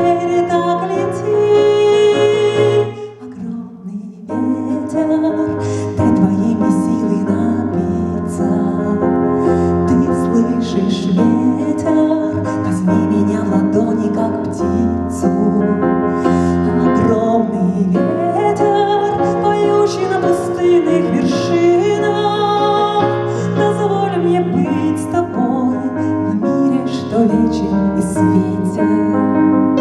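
Instrumental break of a song: keyboard-led backing music with piano-like chords and melody, dipping briefly about three seconds in before carrying on.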